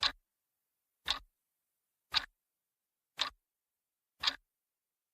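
Clock-tick sound effect, one sharp tick about every second with silence between, counting down the time to answer a quiz question.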